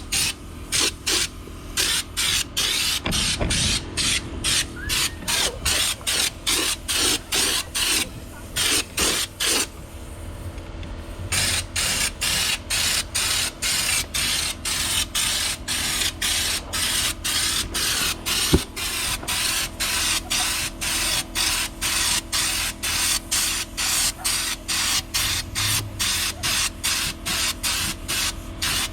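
Compressed-air spray gun spraying a coat on the truck bed in rapid short bursts, about two to three a second, with a pause partway through.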